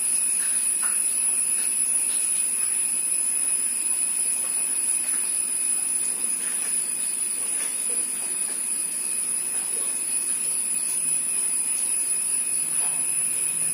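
A steady high-pitched whine over an even hiss, unchanging throughout, with a few faint light ticks here and there.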